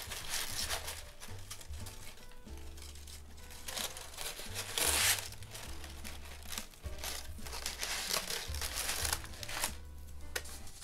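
Honeycomb kraft paper wrapping crinkling and rustling as hands untie a ribbon and handle the package, with one louder rustle about five seconds in.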